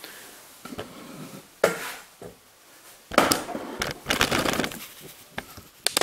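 Handling noise as a camera is picked up and moved closer. There is a sharp knock about a second and a half in, a stretch of rubbing and scraping from about three to five seconds, and a few sharp clicks near the end.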